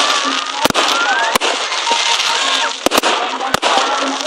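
Fireworks going off: several sharp bangs at irregular intervals over a dense crackle, with a rising whistle about a second in.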